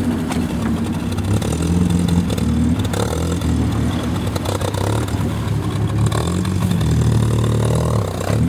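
Off-road 4x4 engine running under load and revving, its pitch rising and falling as the vehicle works through a stream crossing.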